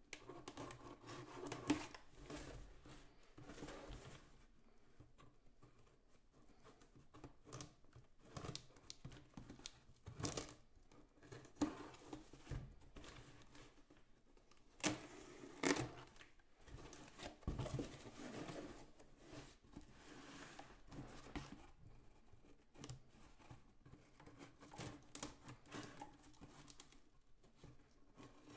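Scissors cutting along the packing tape of a cardboard box: irregular snips and rasping strokes as the blades saw through the tape, with tape tearing and cardboard rustling under the hands.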